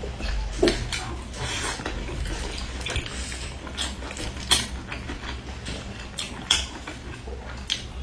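A person chewing crunchy fried chicken: irregular crunches and wet mouth clicks, a few sharper than the rest.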